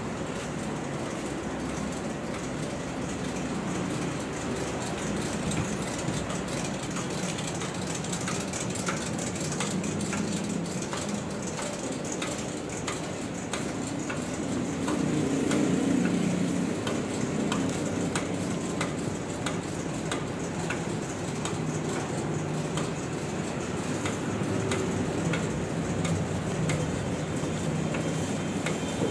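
Plastic-bag printing machinery running: a steady mechanical hum with a light regular clicking about once a second.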